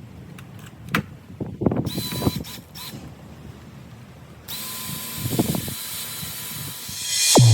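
Cordless drill driving screws in short runs, with a steady motor whine, amid clicks and knocks of handling. Just before the end, a loud falling whoosh into a deep boom.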